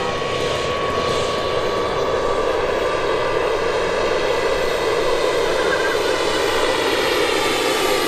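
Radio-controlled model airplane's motor and propeller running steadily in flight.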